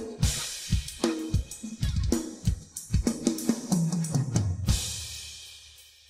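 Rock drum kit played alone, with no other instruments: bass drum, snare and tom-tom fills with cymbal crashes. About three-quarters of the way through, a last crash is struck and left to ring, fading away.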